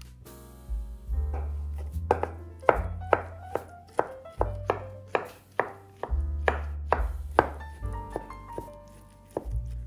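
Chef's knife chopping cooked spinach on a bamboo cutting board: a steady run of strikes, about two or three a second, that ends a little past the middle. Background music plays throughout.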